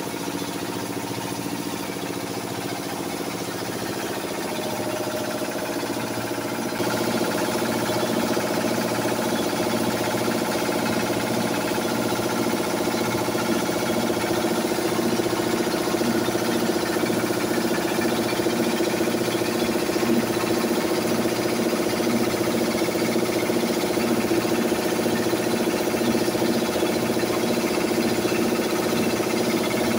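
Posho mill grinding maize into flour, its machinery running with a steady drone and a regular pulsing beat. It grows louder about seven seconds in.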